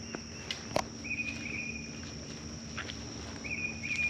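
Footsteps on a leaf-littered woodland trail, over a steady high insect trill. A short wavering high call sounds twice, about a second in and again near the end.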